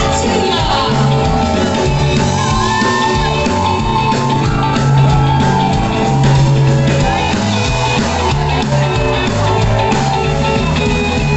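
A rock and roll song playing loud, with a singing voice and shouts over it.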